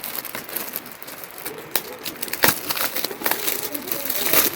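Gift wrapping being crinkled and torn open by hand, a busy run of crackles and sharp clicks as a small present holding a pen is unwrapped.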